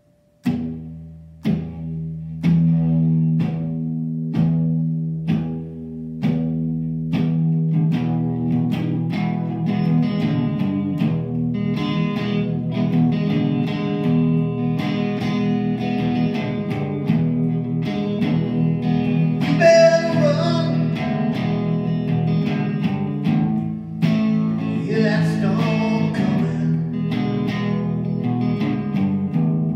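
Stratocaster-style electric guitar played through an amplifier: single chords struck about a second apart and left to ring, then a steady rhythm part from about eight seconds in, with brighter lead phrases about twenty and twenty-five seconds in.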